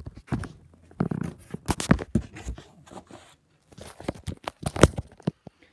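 Cardboard box and packaging being handled and opened: irregular crinkles, scrapes and taps, with a brief pause about three and a half seconds in.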